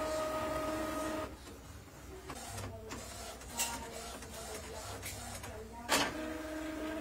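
Epson inkjet printer printing: a steady motor whine that stops after about a second, then irregular whirring of the print mechanism with two sharp clicks, the louder about six seconds in, and the whine starting again near the end.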